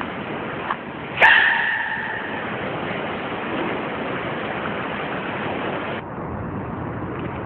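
Baby giant panda sneezing once about a second in: a sudden, short, high squeaky sneeze that fades quickly, over a steady hiss.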